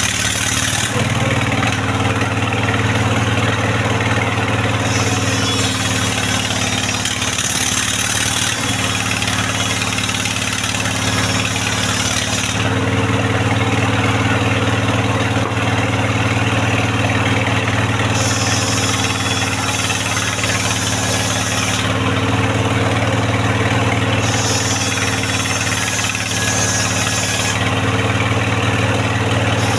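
Engine-driven circular saw of a mobile sawmill running steadily while ripping mahogany into rafters. A high-pitched cutting noise comes and goes in spells of a few seconds over the steady engine hum as boards are fed through.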